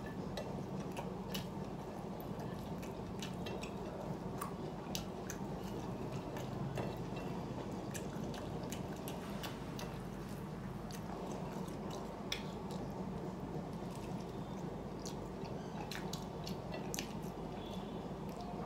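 A person eating rice and fish close to the microphone: chewing, with many small wet mouth clicks and smacks at irregular moments, over a steady low hum.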